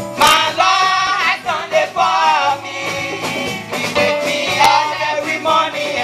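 Praise-and-worship song: voices singing over instrumental accompaniment with percussive hits.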